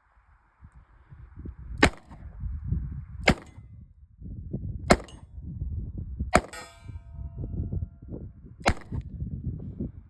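Five single gunshots, irregularly spaced a second and a half to two seconds apart. One near the middle is followed by a ringing metallic tone.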